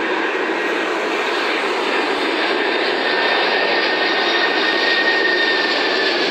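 McDonnell Douglas MD-11 freighter's three jet engines on final approach with the landing gear down: a steady roar with a faint high whine that falls slightly in pitch near the end, growing a little louder as the aircraft nears.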